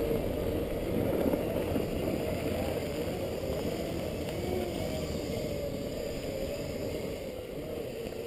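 Off-road Segway's electric drive whining, its pitch wavering up and down with speed, over a steady low rumble of knobbly tyres on a dirt path.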